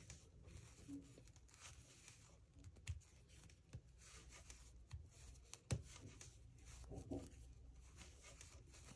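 Faint, scattered clicks of knitting needles and light rustling of yarn as stitches are worked, close to near silence.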